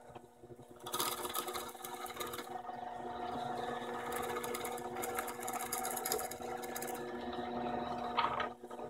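Drill press running, its bit boring into a wooden 2x4: a steady motor hum with two spells of scratchy cutting noise, one starting about a second in and one in the second half.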